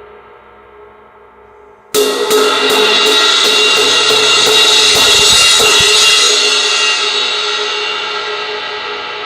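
Repaired 18-inch Sabian AAXplosion crash cymbal: a faint ring fading out, then about two seconds in it is struck hard and repeatedly, roughly three hits a second for about four seconds, building a bright wash that then rings on and slowly fades.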